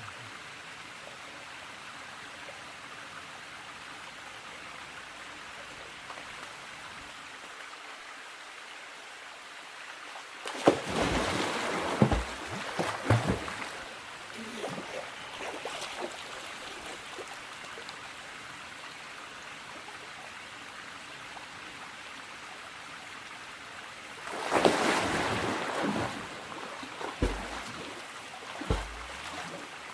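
Steady rushing of a mountain stream, with two bouts of louder splashing, about 11 and 25 seconds in, and a few low knocks near the end.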